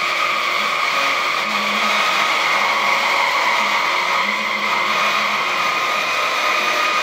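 Bandsaw cutting the outline of a wooden gunstock blank: a loud, steady whine of the blade running through the wood.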